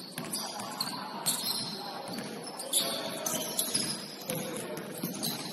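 Basketball game sounds in a gym: short high sneaker squeaks and scattered thuds on the court, over a low murmur.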